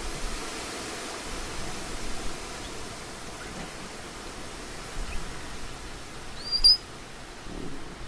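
Steady outdoor background hiss with one short, high-pitched chirp rising in pitch about six and a half seconds in, and a few faint, scattered calls.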